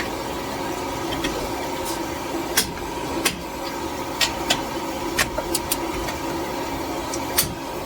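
Sharp single clicks, about ten at irregular intervals, from a torque wrench tightening the lug nuts on an aluminium wheel, over a steady mechanical hum.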